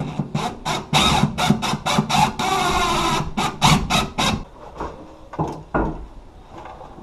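Hand-tool work: a rapid run of rasping, scraping strokes with a squeal, densest just before the middle, then a few scattered knocks.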